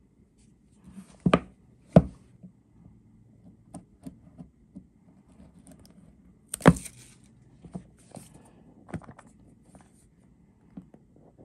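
A cardboard AirPods box handled and turned on a tabletop: irregular taps and knocks of the box against the table and fingers, with three sharper knocks about a second and a half in, at two seconds and near seven seconds, and light rubbing of fingers on the box between.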